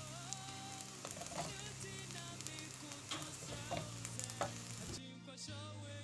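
Fried rice sizzling in a hot oiled pan as it is stirred and mixed, with a spatula knocking against the pan a few times.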